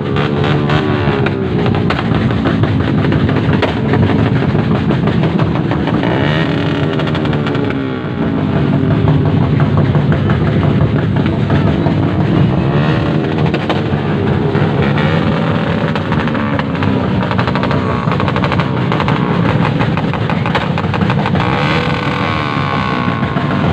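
Loud vehicle engine revving, its pitch rising and falling several times, with a rapid crackling exhaust beat underneath.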